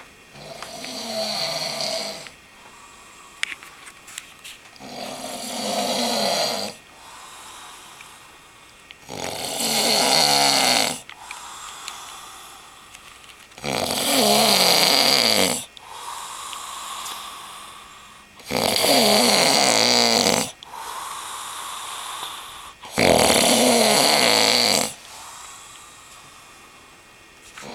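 A sleeping man snoring heavily: six loud, rasping snores about four to five seconds apart, with quieter breaths between them.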